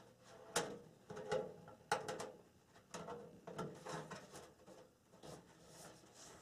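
Faint handling noises: a flexible mesh dust filter being slid and pressed into place under a steel computer case, then the case being shifted on the table, giving a scatter of light clicks and scrapes.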